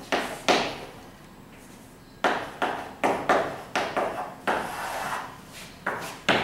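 Chalk tapping and scraping on a blackboard as words are written: a quick run of sharp taps, a pause of about a second, then a longer run of taps and short strokes.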